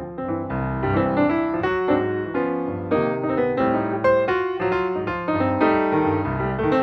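Background piano music: a steady stream of notes over lower bass notes.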